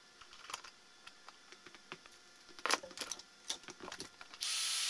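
Light clicks and taps of small tools and wires being handled on a workbench, then, about four and a half seconds in, a heat gun switched on, its fan running with a steady hiss and a faint high whine.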